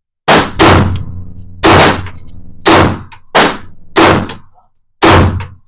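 Handgun fired seven times at an uneven pace, each shot a sharp crack with a short echo off the walls of an indoor range lane.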